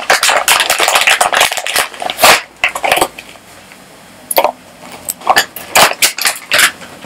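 Foil-wrapped chocolates crinkling and clicking as they are tipped from a plastic sweet bag into a small card box, the bag rustling. A dense run of rustles and clicks for the first two seconds or so, then scattered crackles and taps.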